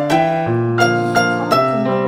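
Background music: a gentle electric-piano tune, notes changing every few tenths of a second over a sustained bass.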